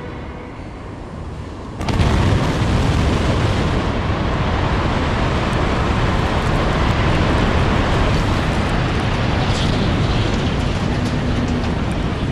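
Steel boiler structure of a coal power plant collapsing in an explosive demolition. A sudden loud burst about two seconds in, then a sustained heavy rumble of the falling structure and debris.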